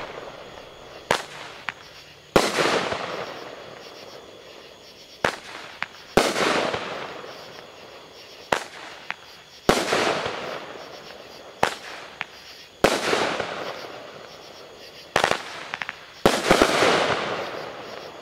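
Legend Fireworks Heavy Metal 200-gram cake firing five shots, each a sharp crack followed about a second later by a louder bang that fades away over a few seconds. The last shot comes near the end with several bangs in quick succession.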